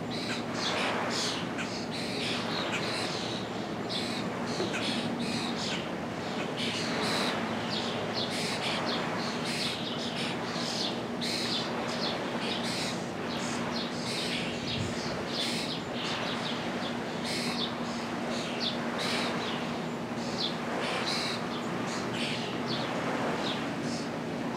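Wild birds chirping and calling over and over in quick short notes, with a steady low hum underneath.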